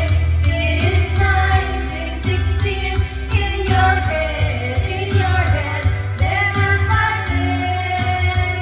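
Karaoke: women singing into handheld microphones over a loud pop backing track with a strong bass beat.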